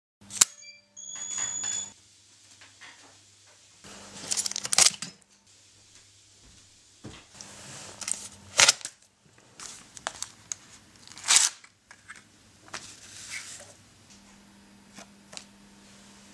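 A cable release trips the shutter of a pack-film instant camera with a sharp click. Then the paper tabs of Fujifilm FP-3000B peel-apart film are pulled out of the camera, a series of rasping pulls and sharp snaps as the film is drawn through and the print is separated.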